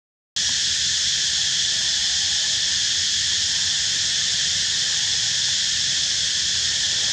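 Steady, high-pitched chorus of insects buzzing, unbroken throughout, after a brief dropout right at the start.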